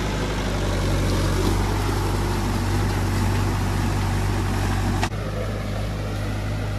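Tractor diesel engine running steadily. A sharp click comes about five seconds in, after which it runs a little quieter.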